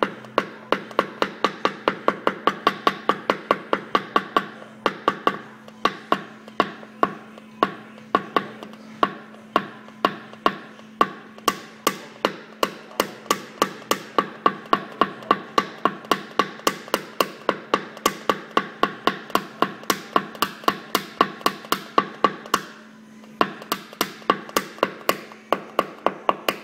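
Rapid light hammer taps on a metal tap-down punch held against a car body panel, about three or four a second with a short pause near the end: tapping the panel down during paintless dent repair.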